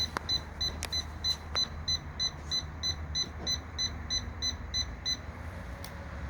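A rapid series of short, high electronic beeps, about three a second, that stops about five seconds in. Under it runs a steady low electrical hum from the running 1000 W microwave.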